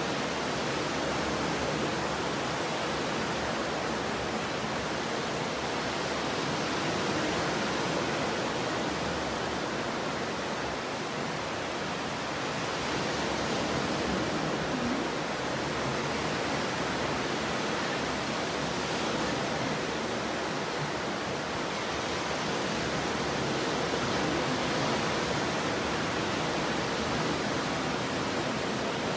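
Ocean surf: a steady, continuous wash of waves with slight slow swells in loudness.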